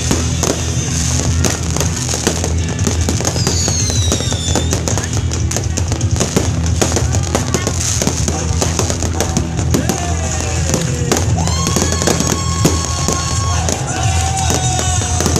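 Many fireworks bursting at once, a dense, continuous crackling and popping of shells and firecrackers.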